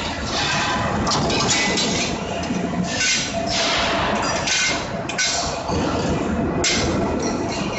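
CNC angle steel punching, marking and shearing line running: a steady machine hum with repeated metallic clinks and short bursts of hiss, about half a dozen, at uneven intervals as the steel angle is fed and worked.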